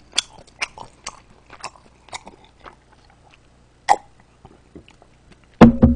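A man gulping a drink from a glass mug, swallowing about twice a second, with a sharp click near four seconds and a short loud vocal "ah" near the end.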